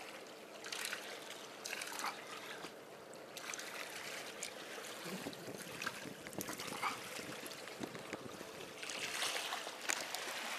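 Sea water lapping and trickling among the concrete tetrapods of a breakwater, with scattered light clicks and knocks.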